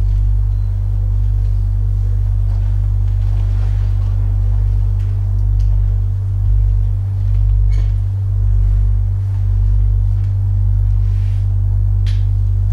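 Sine-wave oscillator drone: two steady, very low tones, one roughly an octave above the other. The lower tone swells and dips in a slow, wavering beat, about once a second in the middle of the stretch.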